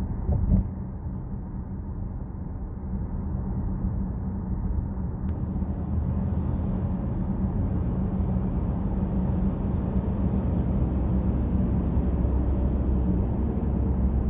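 Steady low road and engine rumble heard inside a Chevrolet Trax's cabin while it drives on an expressway, with a single thump about half a second in, growing slightly louder in the second half.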